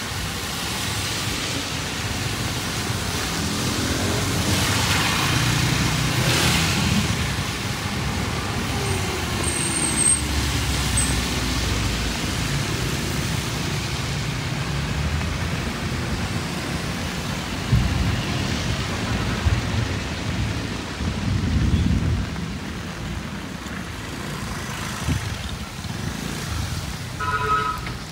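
Road traffic on a wet road in steady rain: cars, motorbikes and a small truck pass one after another, their tyres hissing on the wet asphalt over their running engines, under a constant rain hiss. The loudest passes swell and fade about five seconds in and again around the twenty-second mark.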